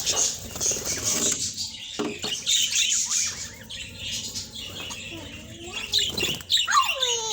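Budgerigars chattering and chirping, with a few louder falling calls near the end.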